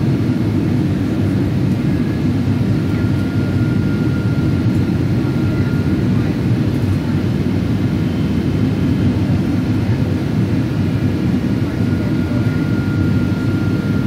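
Steady cabin noise inside a Boeing 777-200ER airliner: an even low roar of airflow and jet engines, with faint thin tones above it.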